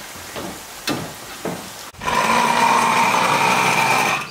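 A couple of knocks, then a small electric spice grinder switched on about halfway through, running at a steady whine for about two seconds before cutting off.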